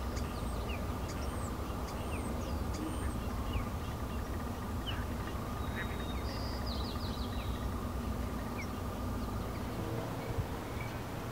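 Short, high bird chirps scattered over a steady low outdoor rumble with a faint hum.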